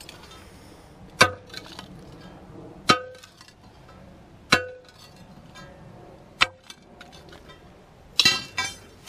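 A long steel pry bar jabbed into a saw-cut concrete curb to break the pieces loose. Each stroke is a sharp metallic clank that rings briefly. Four single strokes come about every one and a half to two seconds, then two quick ones near the end.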